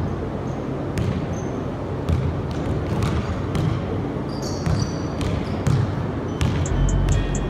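Basketball dribbled on a gym floor, a bounce about every half second, with a few short, high shoe squeaks about halfway through.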